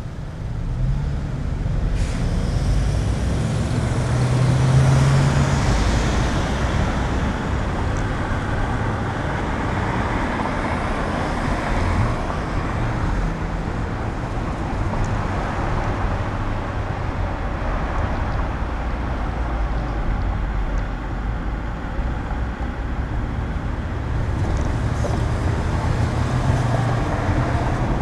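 Car driving in traffic: engine and road noise that grows as it pulls away from a stop about a second in, then carries on steadily.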